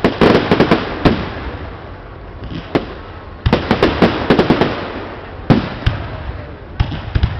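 Fireworks display: aerial shells bursting into gold crackling stars, with dense spells of rapid sharp crackles at the start and again from about three and a half seconds in, and single bangs between.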